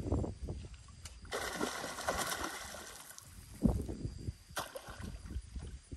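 A hooked gar thrashing and splashing at the water's surface while being played in on a rod, in irregular surges, with the biggest splash about three and a half seconds in.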